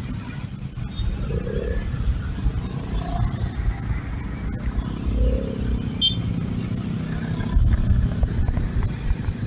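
Road traffic, mostly motorbikes and scooters with some cars, engines running in slow, congested traffic as a steady low rumble.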